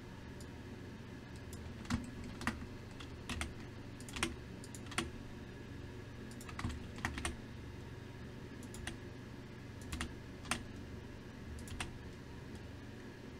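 Computer keyboard keys clicking irregularly, about a dozen scattered presses, over a steady low hum.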